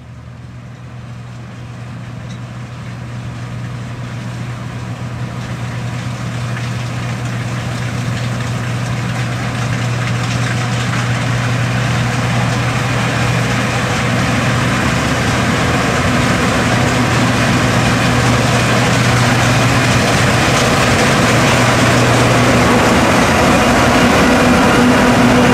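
John Deere S550 combine harvester running steadily while harvesting, its 6.8-litre diesel engine giving a low, even hum under a wide rush of machine noise. It grows steadily louder throughout.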